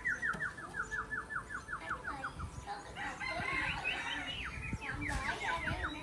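Caged leafbird singing: a quick run of about a dozen clear whistled notes, each sliding down in pitch, then a dense jumbled warble, then another run of falling notes near the end. A few low knocks come in the middle.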